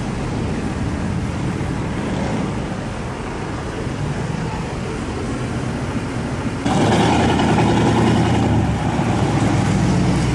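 Pickup truck engines running in slow street traffic. About two-thirds of the way through, a nearer truck engine comes in suddenly louder.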